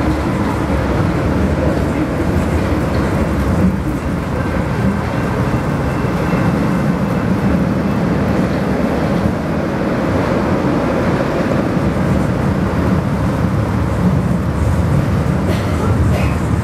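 San Diego Trolley light-rail car running, heard from on board: a steady, even rumble of wheels on rail and running gear.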